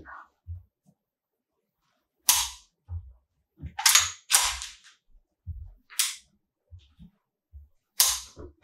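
CZ 75 P01 Compact pistol's slide being racked by hand and snapping forward, with about half a dozen sharp metallic clacks a second or two apart and soft handling bumps between them.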